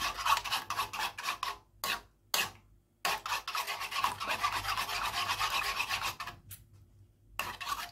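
Metal spoon scraping and stirring eggs in a metal wok, in fast rasping strokes that stop briefly twice, about two seconds in and again near the end.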